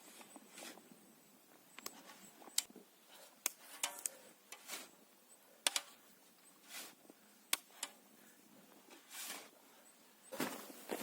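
Scattered light knocks and clicks with soft rustling swishes between them, turning into a denser rustle near the end.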